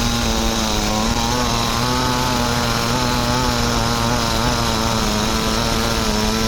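Chainsaw running at a steady speed.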